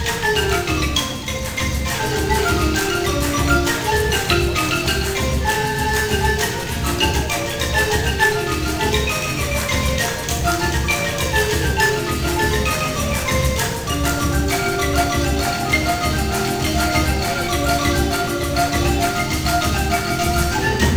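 Marimba ensemble playing on two large wooden marimbas, quick runs of struck notes over a steady beat from a drum kit.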